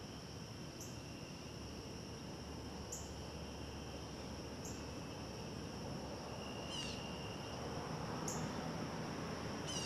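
Steady, high-pitched chorus of crickets trilling without pause. A few short, high chirps sound over it, and a brief falling call comes about seven seconds in.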